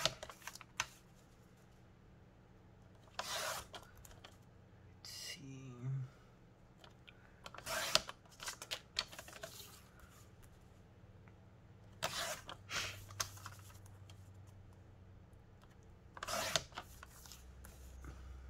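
Scissors cutting paper prints: about five short cutting strokes a few seconds apart, with paper handled in between.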